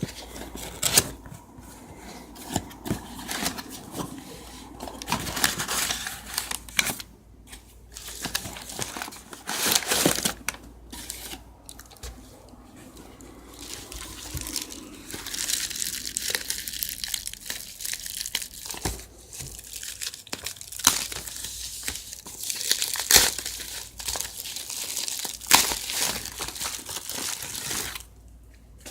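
Product packaging being opened by hand: plastic and paper crinkling and tearing, mixed with short clicks and knocks as the box is handled.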